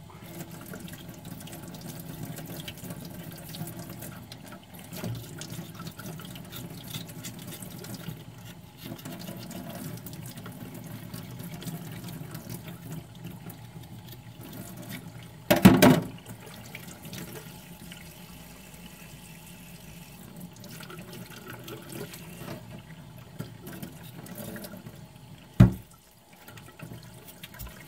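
Kitchen tap running into a stainless steel sink as a pig's foot is rinsed under it. A loud knock comes about halfway through and a shorter, sharp knock near the end.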